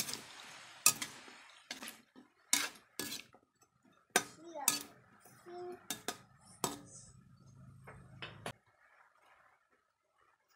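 Metal spatula knocking and scraping against a wok while stirring chicken feet in sauce: a string of sharp, irregular clanks.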